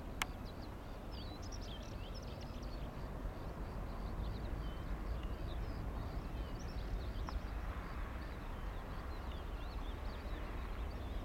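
Distant twin-jet airliner's engines rumbling steadily as it climbs away after takeoff, with small birds chirping throughout.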